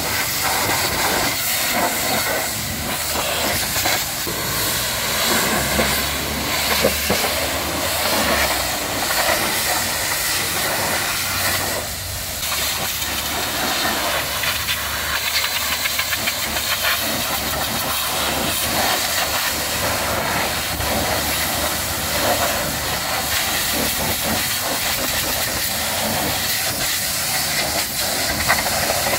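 High-pressure washer spraying water, a steady loud hiss.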